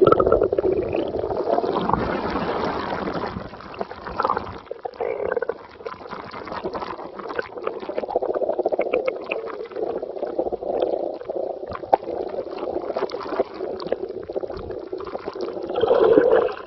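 Running water gurgling and trickling steadily, with small splashy clicks through it.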